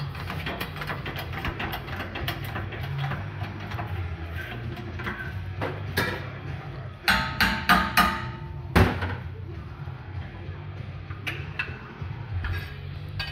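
Background music, with a quick run of about five sharp metal-on-metal strikes that ring, a little past halfway.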